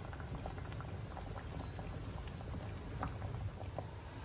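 Soup boiling in a stainless steel stockpot: a steady low bubbling rumble dotted with many small bubble pops.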